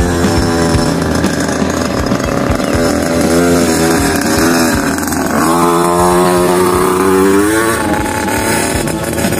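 Small 50cc two-stroke dirt bike engine revving up and down as it is ridden, its pitch rising and falling. It climbs in a long rev about five and a half seconds in, then eases off near the end.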